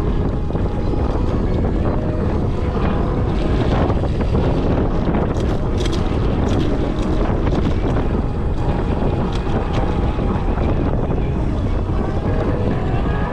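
Strong wind buffeting the microphone: a steady, loud rushing rumble with scattered clicks.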